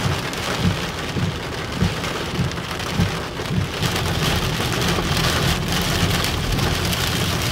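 Heavy rain falling on a car's roof and windshield, heard from inside the car.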